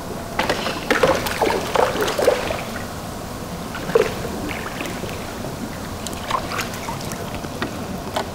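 A hooked carp splashing and thrashing at the water's surface in irregular bursts. The splashes are heaviest in the first two and a half seconds, with another sharp splash about four seconds in and a few more around six to seven seconds.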